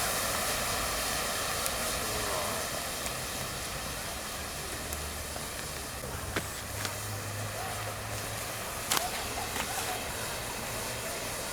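Wood and charcoal bonfire burning hard, fed with potassium nitrate, with a steady rushing hiss and occasional sharp crackles.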